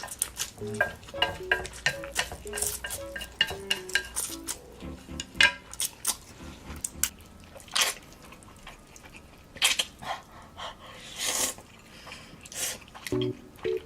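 Eating utensils clicking and scraping rapidly against a bowl as noodles are eaten fast, with a few longer, louder noises between about eight and twelve seconds in. Quiet background music plays underneath.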